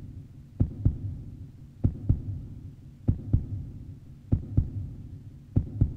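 Heartbeat sound effect: a slow, steady lub-dub, five paired low thumps about 1.2 seconds apart, over a low hum.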